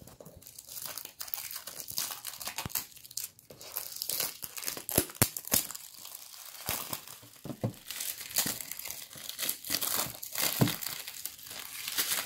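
Clear plastic shrink-wrap being crinkled and pulled off a cardboard product box: irregular crackling with sharper snaps and tearing as the film is stripped away.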